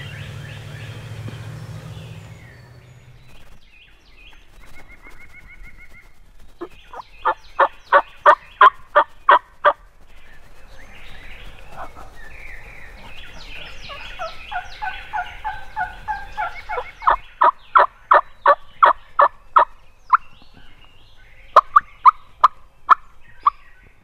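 Wild turkeys calling: two loud runs of evenly spaced yelps, about four a second, with gobbling in the middle, and a few short sharp notes near the end.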